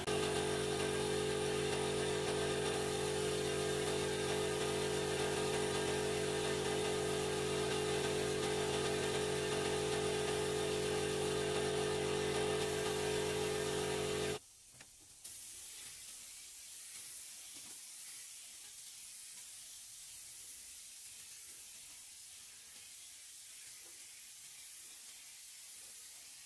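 Electric paint spray gun running steadily, a motor whine with spray hiss, as wood finish is sprayed onto the house wall. It cuts off suddenly about halfway through, leaving only a faint hiss.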